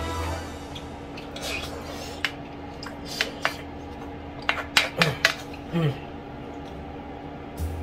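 A spoon clinking and scraping against a plate of curry rice while eating: scattered sharp clinks, several in quick succession around five seconds in.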